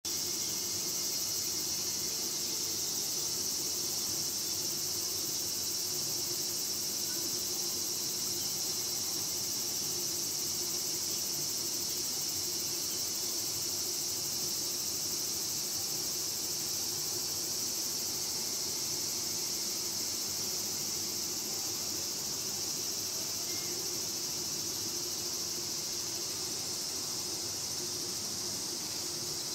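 A steady chorus of insects: an even, high-pitched buzz that does not let up, with a faint low hum underneath.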